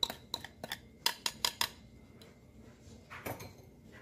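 Whisk clinking and scraping against a glass bowl as a thick slurry is emptied into a pot: a quick run of light clinks through the first second and a half, then a softer scrape about three seconds in.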